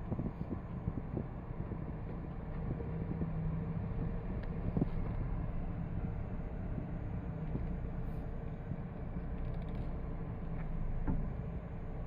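Honda N-BOX being driven: steady running and road noise with a continuous low hum and scattered light clicks.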